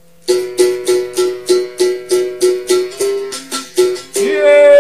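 A berimbau struck with its stick in a steady capoeira rhythm, about three strokes a second, moving between its open and pressed notes. Near the end a long sung note starts, bending down in pitch as it ends.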